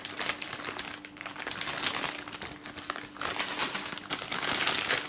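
Clear plastic bags holding model-kit parts on sprues crinkling irregularly as they are handled and turned over in the hands.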